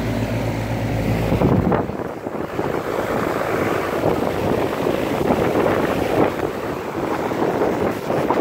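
Amana air conditioner condenser running, a steady low hum from its Bristol compressor and Emerson fan motor, for about the first second and a half. Then wind buffeting the microphone takes over and covers the hum.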